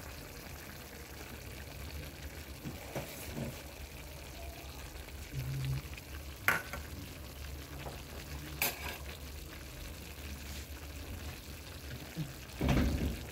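Gizzards and chicken livers cooking in a metal pan as chopped leeks and capsicum go in on top and are stirred with a metal spoon, over a steady low hum. Two sharp clinks of utensil on pan come about six and nine seconds in, and a louder burst of stirring and scraping comes near the end.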